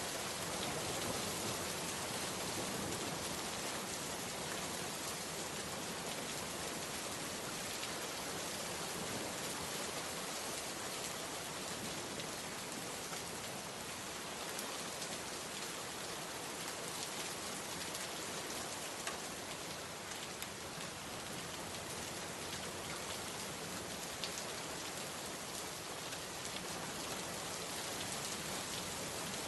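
Steady rain falling and pattering on a surface, a dense even hiss with scattered individual drop ticks.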